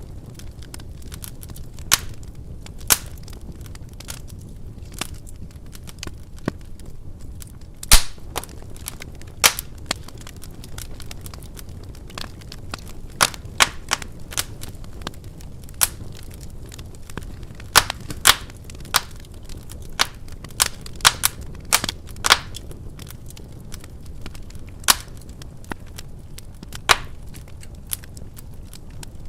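Wood fire burning in a fireplace: a steady low rush of flames with irregular sharp crackles and pops from the burning logs, some louder snaps standing out, the loudest about eight seconds in.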